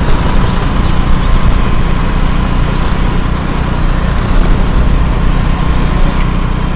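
Wind buffeting the microphone over the running engine and road noise of a motorbike in motion: a loud, steady, rough roar.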